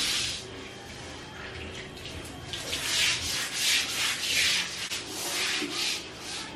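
Long-handled broom scrubbing a wet tiled floor: a run of scratchy bristle strokes, about one or two a second, mostly from about two seconds in.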